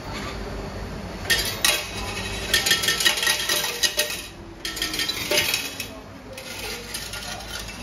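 Clattering and clinking of small hard objects in several bursts, starting about a second in.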